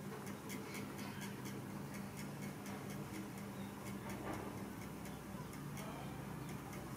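A fast, even ticking, about three ticks a second, over a low steady hum.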